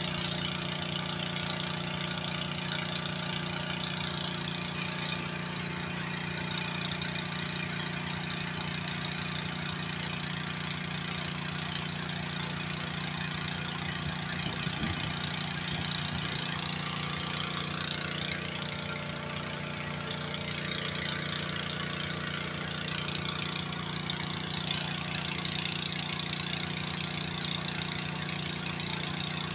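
A fishing boat's engine running steadily at a constant speed, a low, even drone with no change in pitch.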